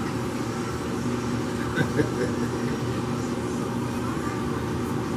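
Steady machine hum, as from a room fan or air-handling unit, running unchanged throughout. One short, sharp sound stands out just before two seconds in.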